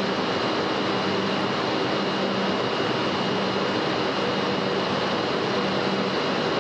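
Steady factory machinery noise: an even rushing sound with a faint low hum and a thin high whine, unchanging throughout.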